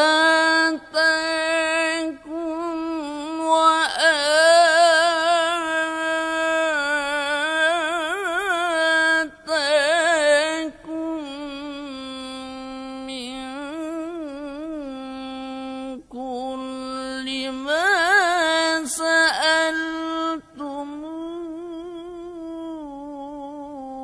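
A male qari's voice reciting the Quran in the melodic tilawah style: long unaccompanied melismatic phrases held with vibrato and quick ornamental turns. A few short breaks for breath; the voice drops lower and quieter after about eleven seconds.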